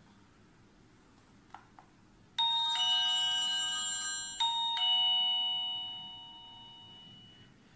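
Electronic video-doorbell chime playing a two-note ding-dong twice in quick succession, the second one ringing out and fading over a couple of seconds. Two faint clicks come shortly before the chime.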